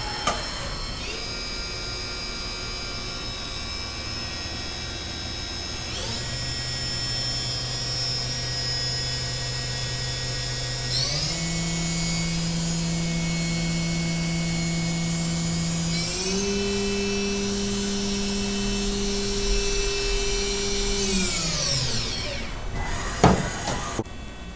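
Haas VF-4SS's 12,000 RPM direct-drive spindle whining, stepping up in speed several times about every five seconds, then spinning down to a stop near the end. A sharp clunk follows shortly after.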